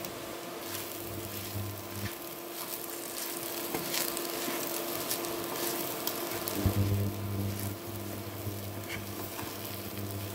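Sago pearls and potato pieces frying softly in a nonstick pan while a wooden spatula stirs and scrapes through them. There is a knock about two-thirds through. A low hum drops out about two seconds in and comes back after six.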